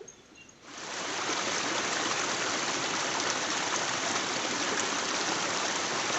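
Steady rush of a stream of running water, which starts suddenly about a second in.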